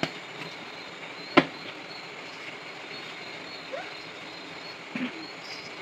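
Steady hiss of food frying in a wok over a lit gas burner, with a sharp knock about a second and a half in and a fainter click at the start.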